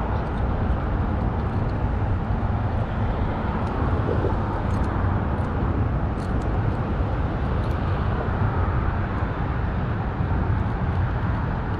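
Steady low rumble of road traffic, with a few faint high ticks over it.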